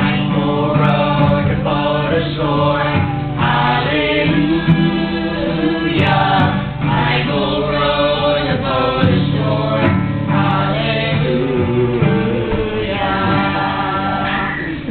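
A group of voices singing a song together to a strummed acoustic guitar.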